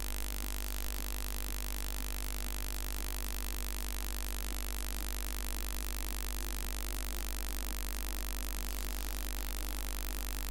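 Steady low hum under a constant hiss, with no changes or separate events.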